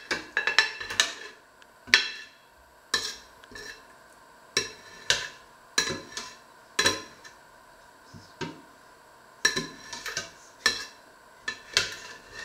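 Metal ladle clinking and scraping against the inside of a stainless steel cooking pot while the last of a vegetable stew is scraped out. Repeated sharp, ringing clinks at uneven intervals.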